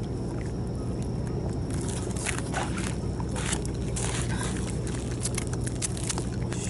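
A steady low drone, like a running motor, under irregular scraping and clicking that starts about two seconds in.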